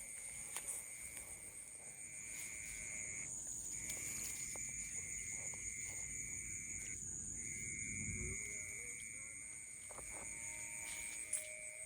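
Steady high-pitched insect chorus, one shrill tone with a higher hiss above it, dropping out briefly twice, over a low rumble that swells about eight seconds in and a few faint clicks.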